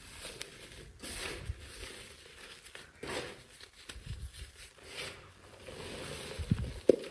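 Dry, crumbly soap being crushed by hand: a series of soft, separate crunches about once a second, with one sharper crack near the end.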